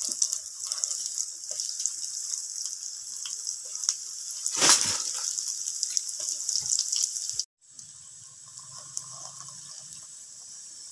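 Red lentil fritters deep-frying in hot oil: a steady sizzling hiss with fine crackles, swelling louder near the middle. About two-thirds through it cuts off abruptly and resumes quieter, with a low hum under it.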